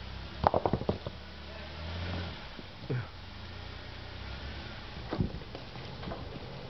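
Jeep Wrangler engine running low and steady while crawling over rocks, swelling briefly about two seconds in. A quick run of sharp knocks comes near the start, with another knock about five seconds in.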